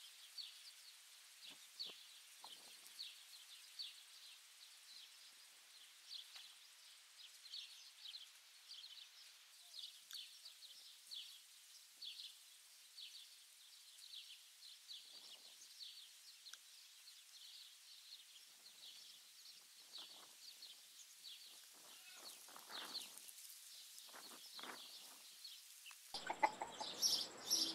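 Quiet farmyard ambience: a faint high chirping repeating about twice a second, with a few low clucks from chickens in the second half and louder, quick calls starting near the end.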